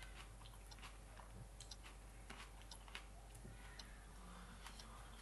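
Near silence: quiet room tone with faint, irregular small clicks scattered through it.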